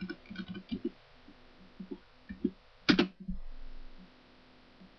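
Faint keystrokes on a computer keyboard as a word is typed, with one louder short sound about three seconds in.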